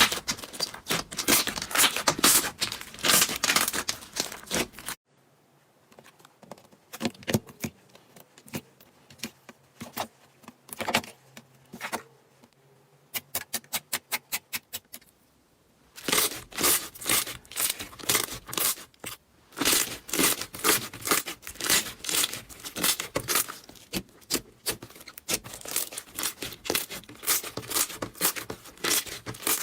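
Slime being squeezed, poked and stretched by hand, giving dense crackling and popping clicks. The sound cuts to a quieter stretch of scattered pops, with a quick even run of clicks near the middle, then the loud crackling returns.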